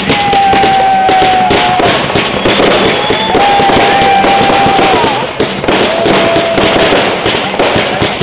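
Fireworks cake firing green crackling stars: a dense, continuous crackle of small pops, with three long steady whistles over it that each dip in pitch as they end.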